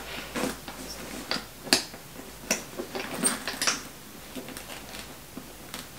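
Louis Vuitton Pochette Métis handbag being handled: irregular light clicks and rustles of its canvas, leather and metal hardware.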